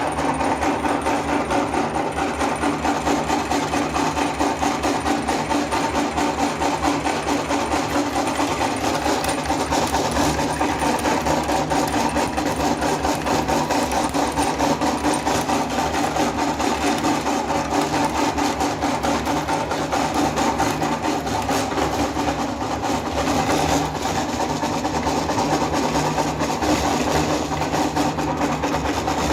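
Electric meat grinder running steadily, its motor hum overlaid with a dense fine rattle as it grinds hard fruity candy.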